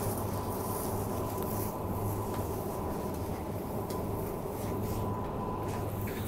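Supermarket background: a steady low hum with a thin, constant high tone, as from refrigerated display cases, plus a few faint clicks and rubbing from handling the phone.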